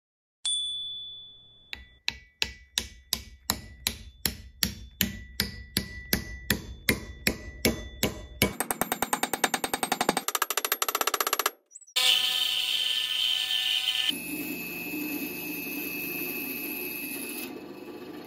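A hammer drives a wooden wedge into the eye of an axe head to lock the new handle: one blow with a ringing tail, then steady blows about three a second, then a much quicker run of blows. After a brief gap, a band saw starts up and runs, cutting off the top of the wedge.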